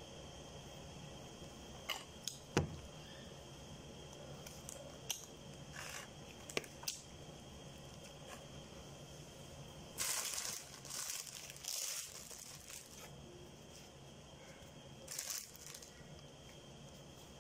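Quiet eating sounds close to the microphone: scattered small clicks of mouth and food, then a few seconds of crinkling, tearing rustles about ten seconds in and a short one again near the end.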